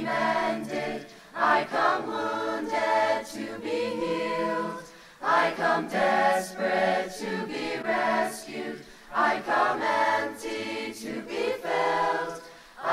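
Mixed high-school chorus singing a hymn in harmony, in phrases of a few seconds with short breaks between them.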